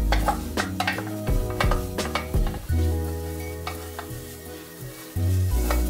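Wooden spoon stirring a simmering syrup in a stainless steel saucepan, with irregular scrapes and taps against the pan, over background music with a held bass line.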